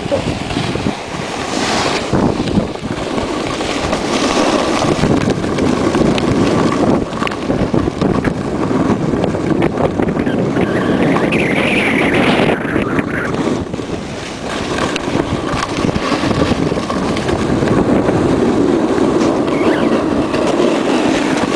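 Wind rushing over the microphone of a camera carried downhill, with the steady hiss and scrape of sliding over hard-packed snow.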